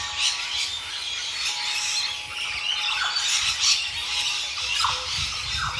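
A chorus of birds in the trees giving many short, shrill, harsh calls that overlap one another.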